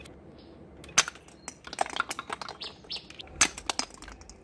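Toy dart gun being fired, each shot a sharp snap, about a second in and again past three seconds, with lighter clicks and knocks in between.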